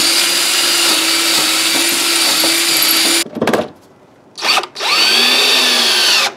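DeWalt cordless drill boring countersunk screw holes into an old lumber board. It runs steadily for about three seconds, stops with a short blip, then spins up again for a shorter second run near the end.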